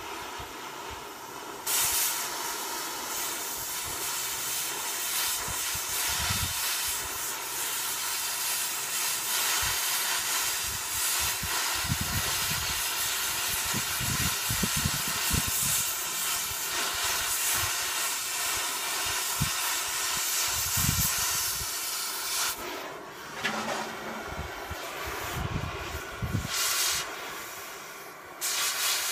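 Cutting torch burning through steel: a loud, steady hiss that starts abruptly about two seconds in, breaks off briefly a little after twenty seconds, and cuts off again just before the end.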